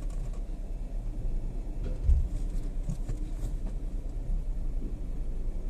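Ford EcoSport engine idling with a low, rattly vibration hum from the engine bay, the 'gharr' vibration noise the owner complains of; the mechanic later traces it to an intercooler that is not seated properly and is missing a mounting bolt. A single low thump about two seconds in.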